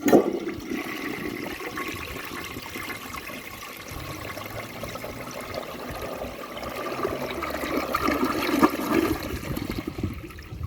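1967 Crane toilet flushing with the handle held down. The flush starts suddenly, then water rushes through the bowl for about ten seconds, swelling near the end and stopping abruptly.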